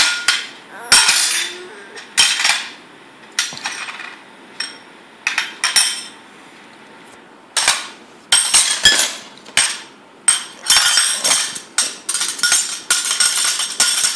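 Toddler banging a Borosil glass bowl against other tableware on a table: sharp, ringing clinks and knocks of glass on dishes in irregular clusters, coming faster over the last few seconds.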